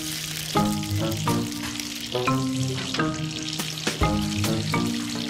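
Oil sizzling in a commercial deep fryer as a battered sandwich fries, a steady hiss, under background music of held notes that change every second or so.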